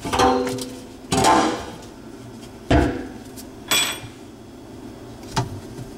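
Metal knocks and clinks as the loosened locknut and ring of an old kitchen sink strainer basket are worked down off the strainer body. A handful of separate strikes, the clearest with a short high metallic ring a little before the four-second mark.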